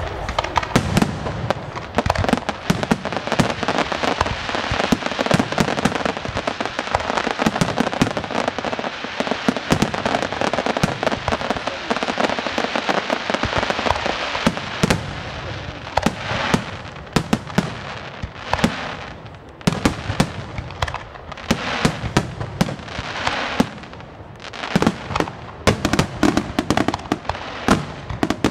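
Aerial fireworks display by Bruscella Fireworks: shells bursting one after another over dense crackling for the first half. After that come more separate bangs with short lulls between them, building to a thick run of bangs near the end.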